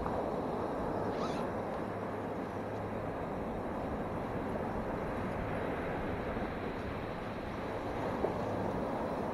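Surf breaking and washing up a sandy beach, a steady rushing wash, with a single short click about eight seconds in.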